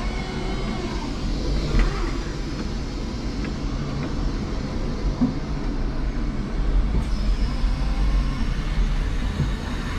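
5-ton electric forklift at work: a steady low rumble from the truck and its mast, with a faint high motor whine over it.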